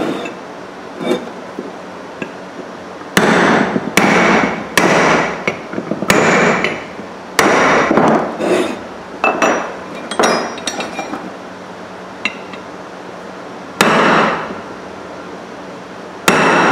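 Ball-peen hammer striking a metal mold and the aluminum casting inside it to knock the casting out. About fifteen sharp, ringing metal blows at irregular intervals, mostly from about three seconds in.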